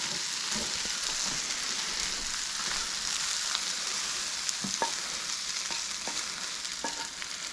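Spaetzle with bacon, cabbage and Gruyere cheese sizzling steadily in a hot pan as the cheese melts and starts to brown, with a few light clicks in the second half.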